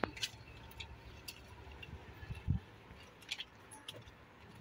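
Faint handling noises of a black bag being opened and searched: scattered small clicks and rustles, with a dull thump about two and a half seconds in.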